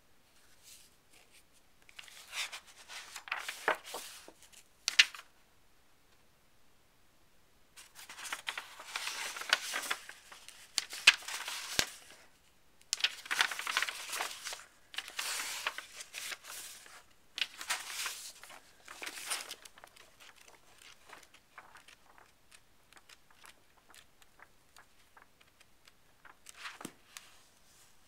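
Paper and papers being handled: rustling and crinkling in several bursts of a few seconds each, then lighter, scattered handling noise near the end.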